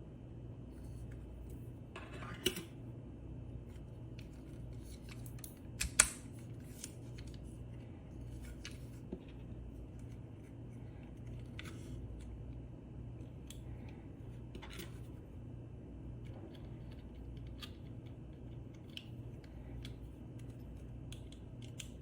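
Scattered light clicks and taps of small tools and extruder parts being handled, the sharpest about six seconds in, over a steady low hum.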